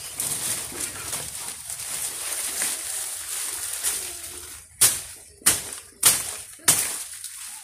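Dry banana leaves and trunk rustling and crackling as they are handled, then four sharp chops about two a second from a golok (machete) cutting into the banana plant.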